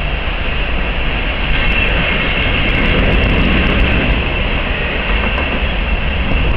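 Freight train of refrigerated boxcars passing at speed over a grade crossing, its wheels making a steady rumble on the rails.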